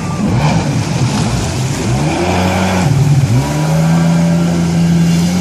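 Jet ski engine revving, its pitch rising and falling, dipping sharply about three seconds in, then running at a steady pitch.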